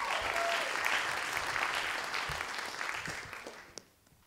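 Audience applauding, fading away about three and a half seconds in, with a single brief click near the end.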